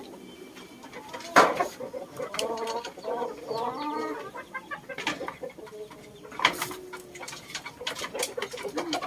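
Japanese Shamo chickens clucking in a run of short calls, with a few sharp knocks in between.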